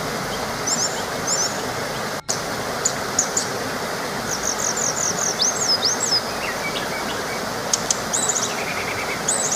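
Small waterfall rushing steadily, with several birds chirping, trilling and whistling over it. The whole sound cuts out for an instant about two seconds in.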